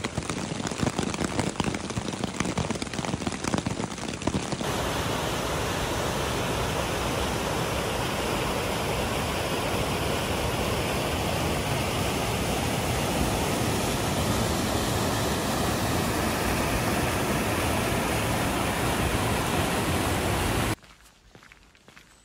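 Steady rush of river rapids over rocks. For the first few seconds there is a grainier, crackling noise instead, and the water sound cuts off abruptly near the end.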